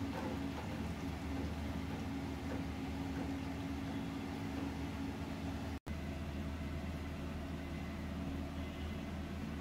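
A steady low mechanical hum, broken by a momentary dropout a little past halfway.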